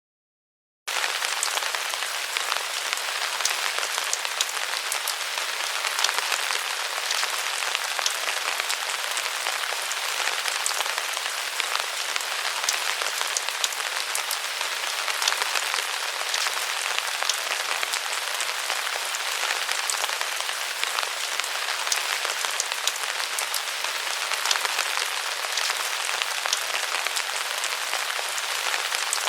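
Rain heard from under the eaves: a steady patter of many separate drops that starts suddenly about a second in.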